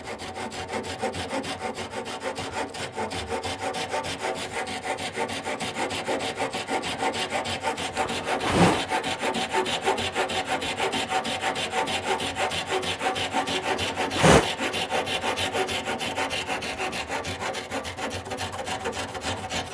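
Flush-cut pull saw, its teeth without set, sawing the overhanging bevel of a solid-wood skirt off flush with the chest side in quick, even strokes. Two louder knocks stand out, about nine and fourteen seconds in.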